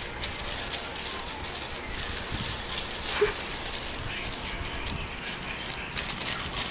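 Thin plastic bag crinkling and rustling as an armadillo crawls about inside it, an irregular crackle throughout.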